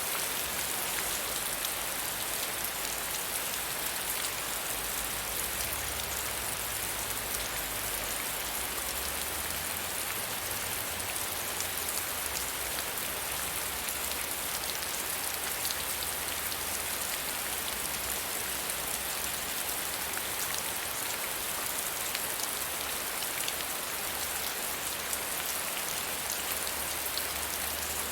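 Steady medium rainfall: an even hiss of rain with many small, distinct drop ticks, holding at the same strength throughout.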